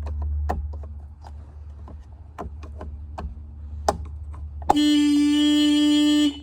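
Small plastic clicks and taps from the steering-wheel horn-pad cover being worked loose by its pinch tabs. Near the end the Daihatsu Midget II's horn sounds in one steady blast of about a second and a half and cuts off sharply, set off by pressing on the horn pad while prying it up.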